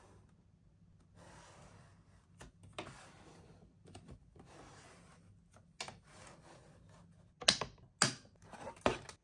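Soft rustling with scattered clicks, then a few sharp taps in the last two seconds.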